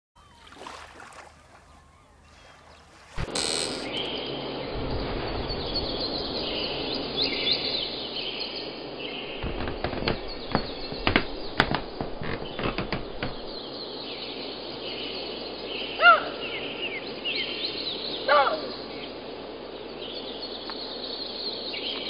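Forest ambience of birds chirping over a steady background hiss, which starts suddenly about three seconds in. A cluster of sharp clicks comes in the middle, and a louder bird call of quick repeated notes sounds twice near the end.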